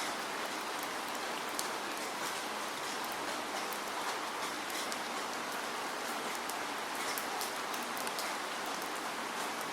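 Steady rain falling, an even hiss with many small drops pattering and ticking on a surface.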